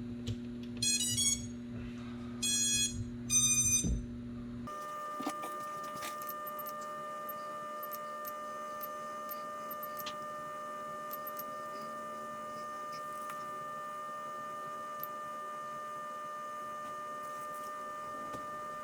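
Motors of an iFlight Nazgul5 4S FPV quad playing the ESC startup tones in three short runs of beeps when its battery is plugged in. After them comes a steady high-pitched tone.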